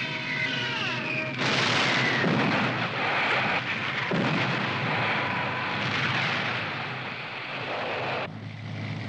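A descending whistle falls in pitch until it breaks off about a second and a half in. Then comes a long rush of bomb explosions lasting several seconds, dropping away near the end.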